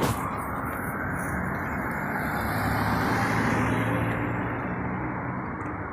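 A motor vehicle's engine passing on the street. Its low hum swells to a peak about three and a half seconds in, then fades, over steady street traffic noise.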